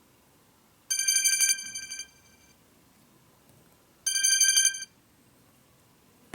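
Samsung Galaxy Note 10 stock ringtone playing from the phone's speaker: a bright electronic bell tone with a fast trill. It rings twice, the first ring about a second long and a second, shorter ring about three seconds later.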